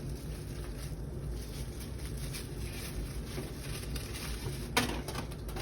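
Light taps and rustles from handling food and plastic bags at a kitchen counter, over a steady low hum, with one sharper knock near the end.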